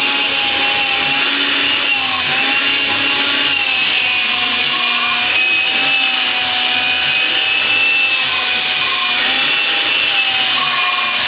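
Vacuum cleaner running steadily: a constant rush of air under a motor whine whose pitch wavers slightly.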